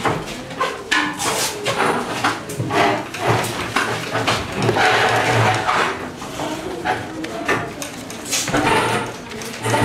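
Classroom clatter: many short wooden knocks from desks and chairs being bumped and moved, with children's voices in the background.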